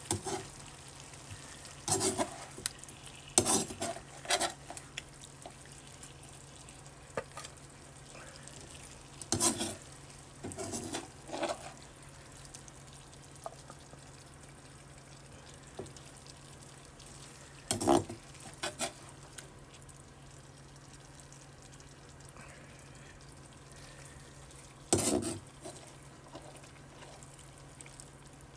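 Slotted spatula scraping and knocking in a nonstick frying pan and against a plate as stir-fried vegetables are scooped out, in short separate bursts with quieter gaps between. A low steady hum runs underneath.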